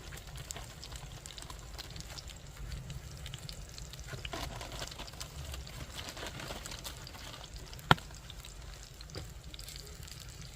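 Floured venison cubes sizzling in a cast iron pan over a campfire, with scattered small crackles and one sharp knock about eight seconds in.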